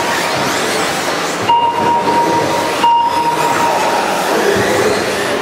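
Several radio-controlled 2WD buggies racing: a steady mix of motor and tyre noise with faint rising whines as cars accelerate, and a steady high tone that sounds twice for about a second.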